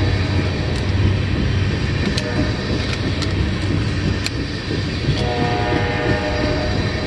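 Freight train tank cars rolling past: a steady rumble of steel wheels on rail with scattered sharp clicks. A steady tone of several pitches joins about five seconds in.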